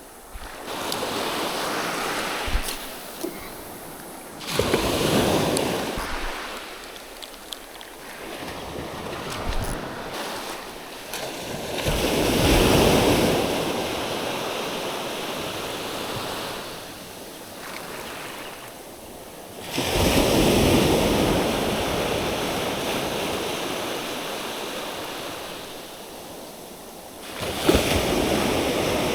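Sea waves breaking and washing up the shore. A surge comes about every seven or eight seconds and fades away before the next.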